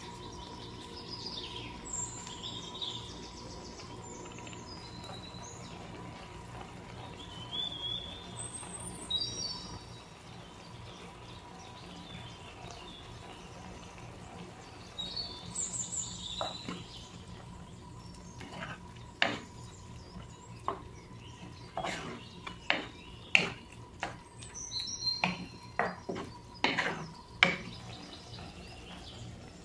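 A wooden spatula knocking and scraping against a stone-coated frying pan as a thick tomato sauce is stirred, in a run of sharp taps in the second half. Birds chirp in the background throughout, and there is a faint steady hum.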